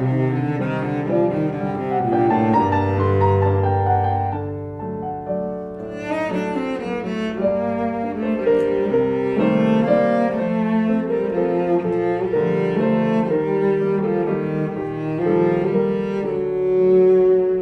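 Cello and piano playing an instrumental passage of a Mexican folk song. The cello holds a low bowed note a few seconds in, and the playing grows busier and brighter about six seconds in.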